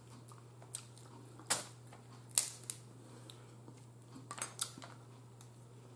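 Crab shells cracking and snapping as the meat is pulled out of snow crab legs: a scattering of short, sharp clicks and crackles, a few to a second, over a faint low hum.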